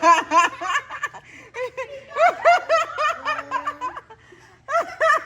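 Children laughing in quick runs of high-pitched giggles, with a short lull about four seconds in.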